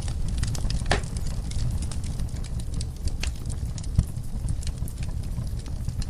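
Wood fire in a fireplace crackling: frequent sharp pops and snaps over a low steady rumble of flame, with a louder pop about four seconds in.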